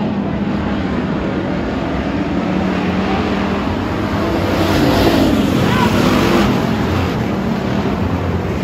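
Pack of hobby stock race cars running on a dirt oval, their engines droning together and swelling louder as the cars pass close about four to six seconds in.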